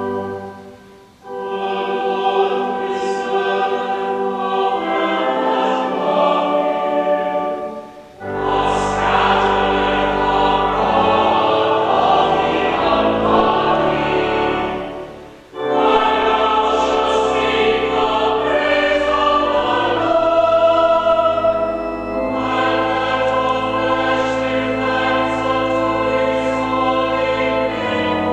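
Church choir singing in long held phrases, with short breaks between phrases about a second in, about eight seconds in and about fifteen seconds in.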